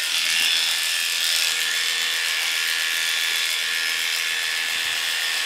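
Cordless dog grooming clippers with a number 10 blade running with a steady buzz while shaving the coat on a poodle's throat and under its chin.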